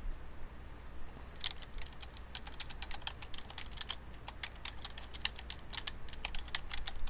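Typing on a computer keyboard: a quick, uneven run of key clicks that starts about a second and a half in.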